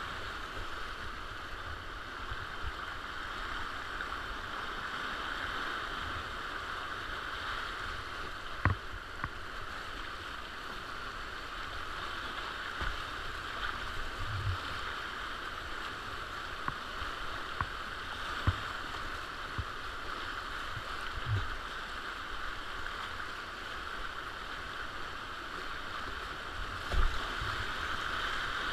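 Whitewater of a fast Alpine river rushing past a kayak, heard close from a bow-mounted action camera: a steady hiss of rapids with several short low thumps as waves splash over the bow and camera.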